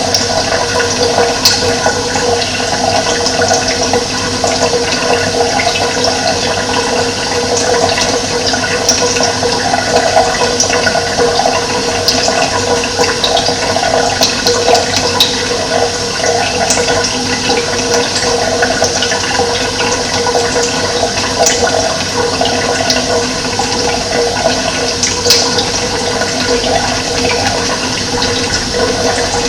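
Running water, a steady continuous rushing that does not let up.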